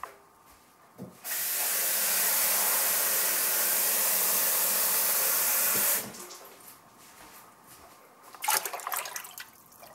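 Kitchen tap running into a bowl for about five seconds, turned on about a second in and shut off abruptly; a short clatter of the bowl being handled follows near the end.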